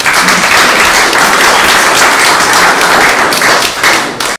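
Audience applauding: a dense run of many people's handclaps.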